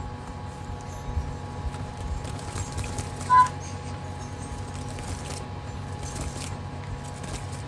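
Faint rummaging and handling noises, light clicks and rustling, over a steady background hum, with one short beep about three and a half seconds in.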